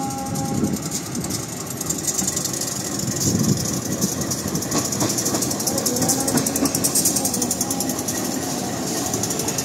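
CC204 diesel-electric locomotive running light past at low speed: its engine running steadily, with a few sharp clicks of wheels over rail joints about halfway through.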